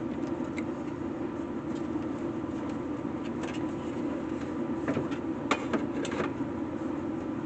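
A steady low mechanical hum, with a few light clicks and taps of small parts being handled in the second half.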